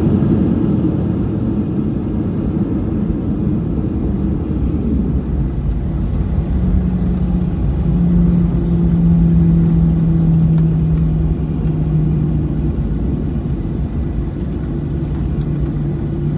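Boeing 737 cabin noise during the landing rollout: a steady low rumble from the engines and the wheels on the runway. A steady hum comes in about six seconds in, fades out a few seconds later, and returns near the end.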